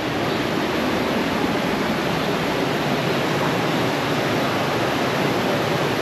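Alpine coaster sled running along its track: a steady rushing noise of wind and running wheels on the rider's microphone, even and unbroken.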